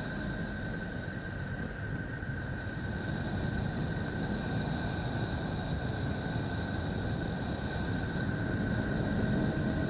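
A planet "sound" (spacecraft radio and plasma-wave data turned into audio): a dense, steady rumbling drone with two steady high whistling tones over it, slowly growing louder.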